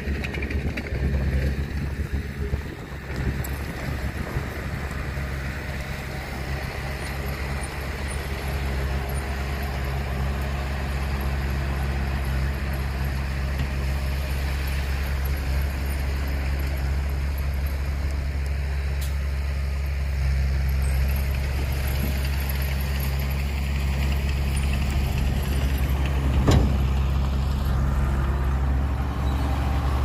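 Heavy diesel engine running steadily at a constant speed, with a single sharp knock near the end.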